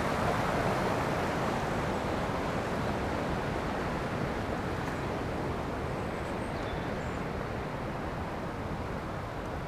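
Whitewater river rushing over rocks, a steady noise of water that slowly grows fainter.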